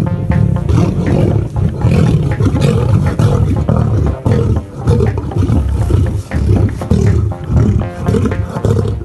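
Male lions roaring in a run of deep calls, one swell after another.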